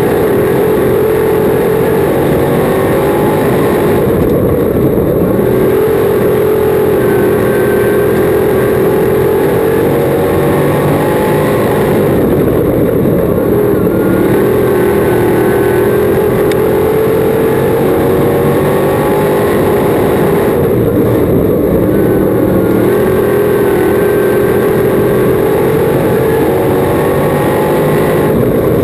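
Crate modified dirt-track race car's V8 engine heard from inside the cockpit, running hard at speed. Its pitch climbs steadily, then drops as the driver backs off. This happens about every eight seconds as the car laps.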